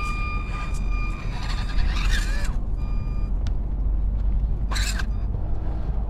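Steady low rumble with the thin high electric whine of an Axial SCX24 micro RC crawler's motor, which cuts off about a second in and comes back briefly around three seconds. A short scuffing noise near the five-second mark.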